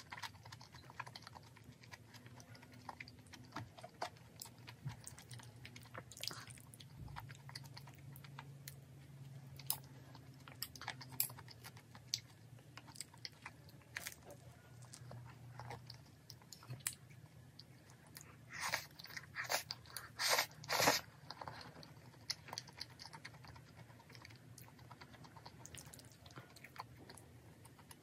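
Chewing and biting, with a run of louder crunches about two-thirds of the way through, as a person eats creamy pasta and toasted garlic bread.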